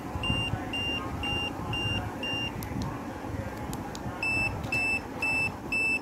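Turn-signal beeper of a wireless bicycle turn-signal light set sounding a short high beep about twice a second while the indicator flashes. The beeping stops about two and a half seconds in and starts again, louder, a little under two seconds later.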